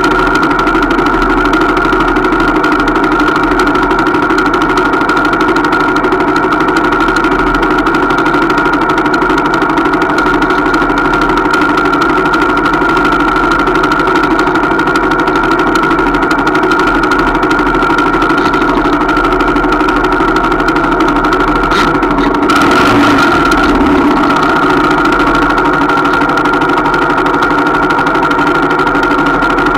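Small 125cc trail motorcycle engine idling steadily at a constant pitch, with a brief rush of noise a little over two-thirds of the way through.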